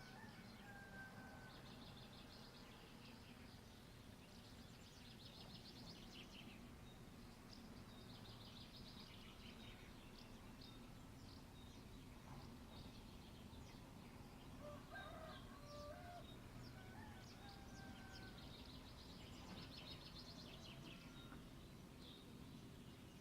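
Faint dawn birdsong: small birds trilling and chirping repeatedly, with lower calls from a rooster about two-thirds of the way through, over a steady low hum.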